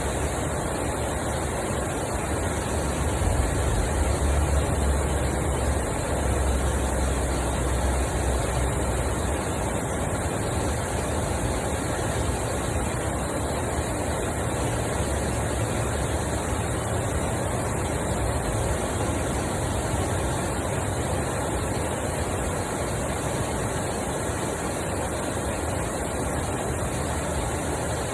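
Steady rush of water pouring over a small canal spillway, with a low rumble swelling for a few seconds near the start.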